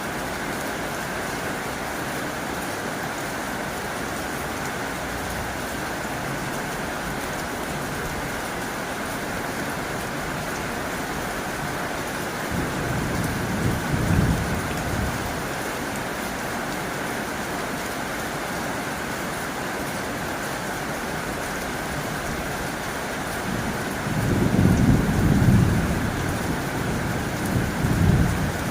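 Heavy rain drumming steadily on a tin roof. Twice, about halfway through and again near the end, a low rumble swells up under the rain for a few seconds.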